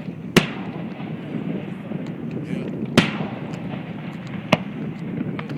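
Fireworks shells bursting: three sharp bangs, the first just after the start, the second about three seconds in and the third about a second and a half later.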